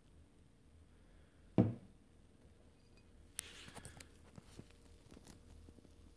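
A pint glass of beer handled on a wooden table: one dull knock about one and a half seconds in, then a couple of seconds of faint crackling and small clicks.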